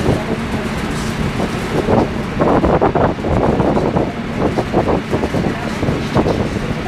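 Railway station ambience: a steady low rumble of vehicles, with louder broken bursts from about two seconds in until near the end.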